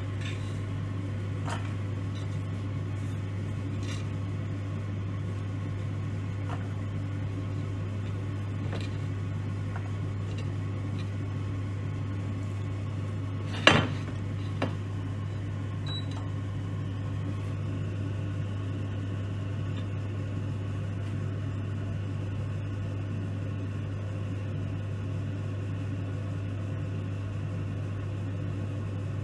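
Steady low electrical hum from the stove under a stainless steel pot, with a few faint clicks and one sharp metal clink about 14 seconds in as chopped garlic goes into the pot.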